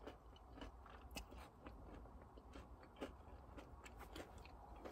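Faint chewing with soft, irregular mouth clicks and lip smacks from a person eating.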